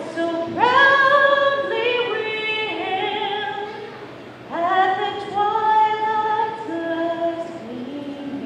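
A female voice singing unaccompanied, with long held notes in two phrases and a short break about four seconds in.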